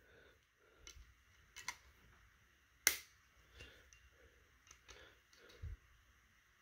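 Faint, scattered metal clicks and taps from a pair of locking pliers and diagonal cutters being handled and set against a small aluminium expanding rivet, with one sharper click about three seconds in.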